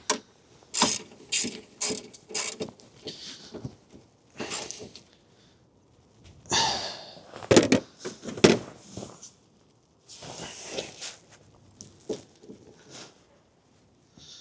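Ratchet wrench clicking in short runs as a 10 mm bolt on a car is tightened down hard, with separate clicks between a couple of longer, faster runs of ratcheting.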